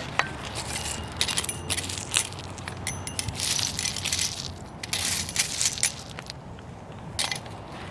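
Garden dirt and gravel crunching and rustling as it is handled, with many scattered sharp clicks and two longer hissy stretches near the middle.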